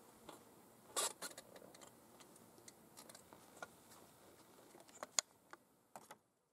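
Handling noises from a muzzleloading rifle being lifted and moved about: a knock about a second in, scattered light clicks and rattles, and a sharp click about five seconds in, with two more just before the sound cuts off.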